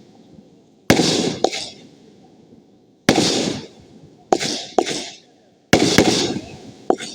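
Fireworks going off: a run of about five loud, sharp bangs at uneven intervals, each trailing off in a crackling hiss, several followed by a second pop about half a second later.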